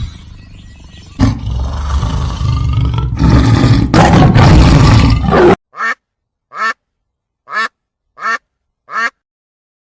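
Animal calls: a loud, rough call lasting about four seconds, which stops abruptly, then a series of six short calls about one a second.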